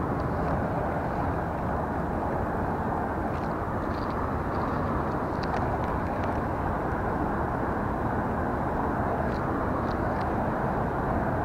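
Steady rushing wind noise on the action camera's microphone, with a few faint high ticks scattered through it.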